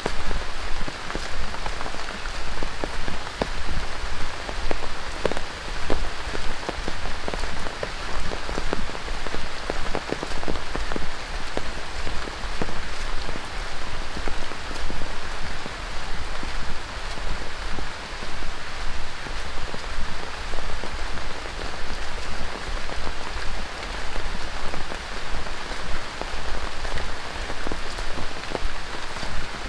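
Heavy tropical rain falling steadily on dense rainforest foliage and a wet trail, with many sharp, close drop hits.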